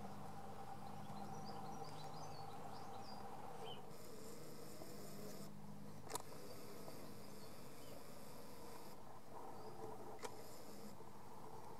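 Quiet garden ambience: a few small bird chirps in the first few seconds, then a faint high buzz that comes and goes in stretches of one to three seconds, starting and stopping abruptly. Two soft clicks, one about six seconds in and one near the end.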